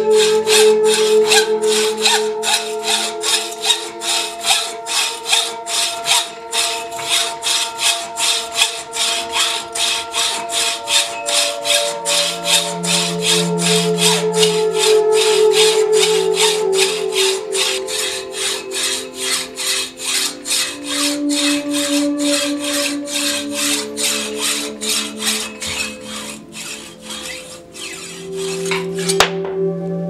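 Hacksaw cutting through a carbon fork steerer tube held in a threadless saw guide: steady back-and-forth rasping strokes, stopping just before the end as the cut goes through.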